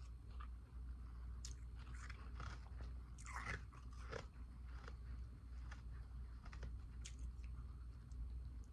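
Ice being bitten and chewed close to the microphone: irregular crisp crunches every half-second to second, the loudest about three and a half seconds in.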